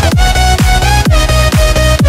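Electronic dance music with a kick drum about twice a second under a synth melody that bends in pitch.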